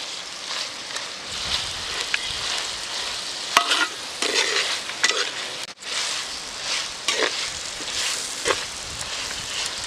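Chicken sizzling as it fries in oil in a pan, stirred with a series of irregular scraping strokes of the spoon against the pan, with one sharp clack about a third of the way in and a brief dropout near the middle.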